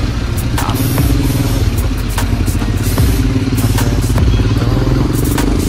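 Motorcycle engine running steadily as the bike rides through traffic, with scattered sharp clicks over it.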